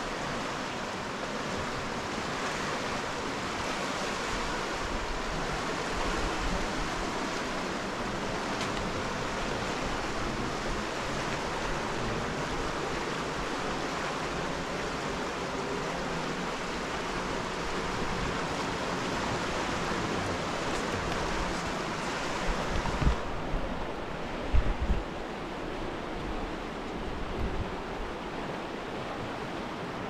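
Fast, turbulent river rushing steadily. A little past two-thirds of the way through, the sound turns duller and a few low thumps come in.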